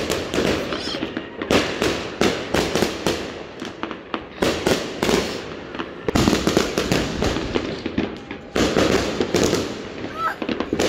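Fireworks bursting overhead in a rapid run of bangs and crackles, coming in several loud flurries with short lulls between them.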